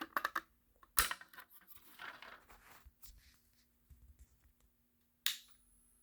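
Sharp clicks and small taps of battery clips and wires being handled while a Wheelock RSS-2411W strobe is rewired for code 3 flashing; the loudest click comes about a second in and another just past five seconds. Right after that last click a faint high whine begins.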